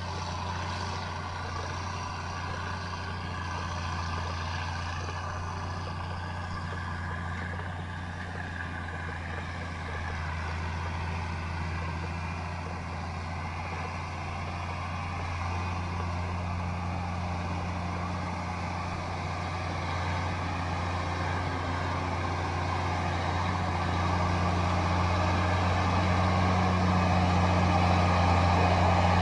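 Heavy machine's engine running steadily with a low drone, growing louder over the last ten seconds or so.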